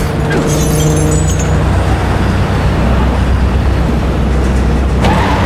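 Vehicle engines and road noise at highway speed: a steady low engine drone under a constant rush of road and wind noise.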